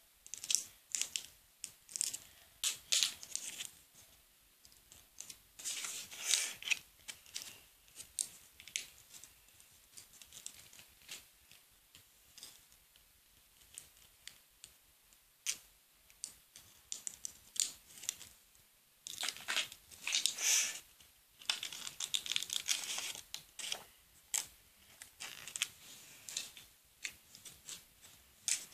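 Paper being cut with small hand scissors and handled: irregular snips and papery rustling, sparse in the middle and busier about two-thirds of the way in.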